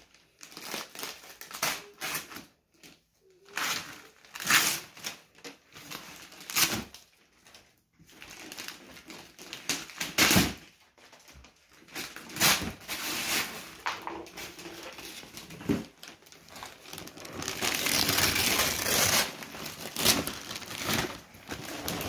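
Wrapping paper being torn and crumpled off a gift box by hand, in irregular rips and crinkles, with a longer, denser stretch of tearing about three-quarters of the way through.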